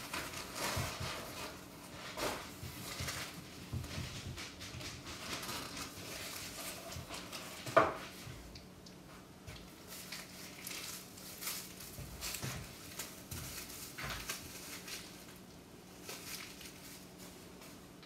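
Handling noise from a steel arming sword being lifted out of its box and held in a cloth: rustling with light metallic clinks and taps throughout, and one sharp clink or knock about eight seconds in, the loudest sound.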